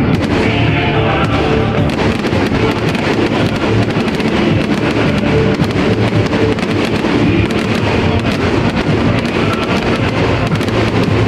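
Music playing loudly, with fireworks bursting and crackling over it throughout.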